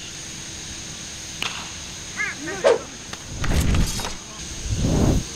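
Two swelling whoosh sound effects, about three and a half and five seconds in, for an animated inning-change graphic. Before them comes a short high-pitched yelping call.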